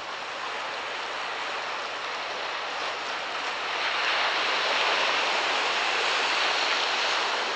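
Surf washing on a rocky shore: a steady hiss of breaking water that grows louder about four seconds in.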